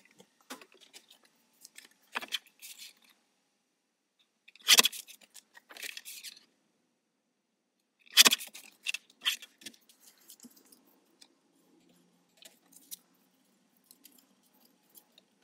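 Black card stock being handled, scored and cut on a paper trimmer: crisp scrapes, snaps and rustles, the two loudest about five and eight seconds in. Softer taps and rustles follow as the card is folded.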